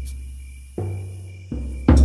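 Shamanic frame drum struck three times, each beat a deep boom that rings on and fades: one just under a second in, a softer one about half a second later, and a loud one near the end.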